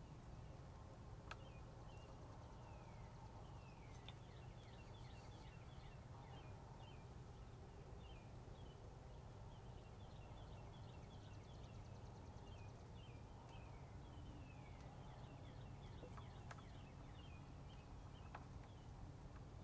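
Faint chirps and short downward-sliding whistled notes of small birds, repeated many times, over a steady low rumble of background noise.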